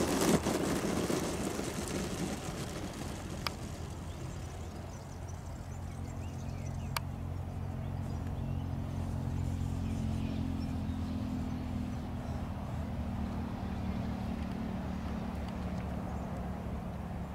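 Twin electric ducted fans of a Freewing MiG-29 RC jet running at low taxi power with a steady low hum, after a rough rumble of the ground roll at the start. Two sharp clicks cut through, a few seconds apart.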